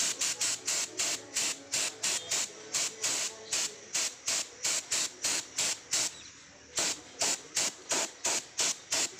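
Gravity-feed paint spray gun spraying in quick, regular bursts of hiss, about four a second, with a short pause about six seconds in.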